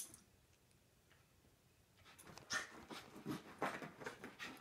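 A freshly bathed dog rolling and rubbing its body along a carpet: after a brief click at the start and a short lull, irregular scuffing strokes of fur on carpet begin about two seconds in, mixed with the dog's own breathing noises.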